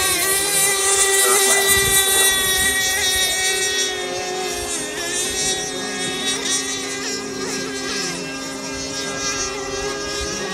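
7.5 cc Novarossi .45 two-stroke glow engine with a tuned pipe, driving a radio-controlled racing mono at full speed: a steady high-pitched scream with a few brief dips in pitch, growing a little fainter after about four seconds.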